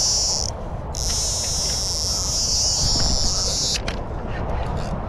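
A fishing reel buzzing at a high pitch in two runs: it stops briefly about half a second in, then runs on for about three seconds and cuts off. A low rumble lies underneath.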